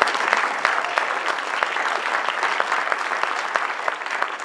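Audience applauding, a dense clatter of many hands clapping that slowly dies down near the end.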